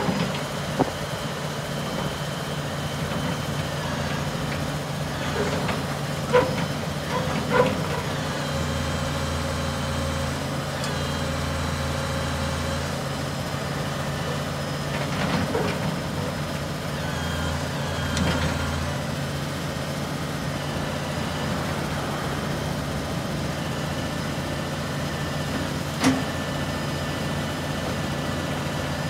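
Truck engine idling steadily under a truck-mounted tree spade. A deeper hum comes in twice for a few seconds as the hydraulics are worked, and a few short metallic clanks stand out.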